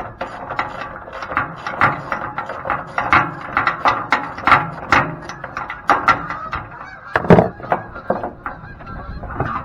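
A screw being worked out of a metal machine frame with a hand tool, giving a run of irregular squeaks and clicks several times a second.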